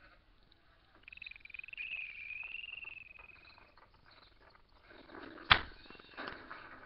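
A cartoon soundtrack heard through a TV speaker: one wavering high tone, like a whistle, lasting about two and a half seconds, then a sharp knock about five and a half seconds in, followed by a softer sound.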